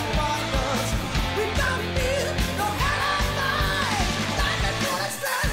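Hard rock song with a male lead vocal over a steady drum beat and bass; the bass and drums drop out briefly just before the end.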